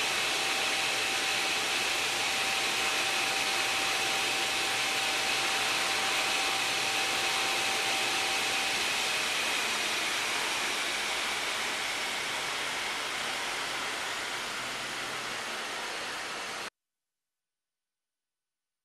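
Steady rushing machine noise, like a large blower or fan, with a faint steady whine for about the first half. It fades slowly, then cuts off abruptly to silence near the end.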